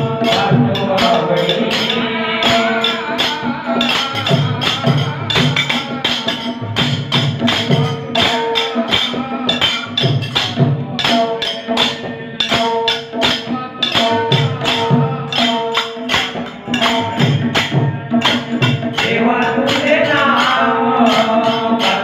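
Devotional bhajan music from a bhajan group: steady held harmonium notes under a wavering melody, with regular hand-drum beats and many quick jingling cymbal and tambourine strokes keeping the rhythm.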